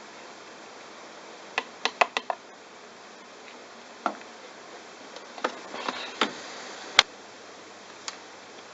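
Bosch washing machine washing a load of towels: a steady hiss of churning water with irregular sharp clicks and knocks, a quick run of five about two seconds in and the loudest near the end.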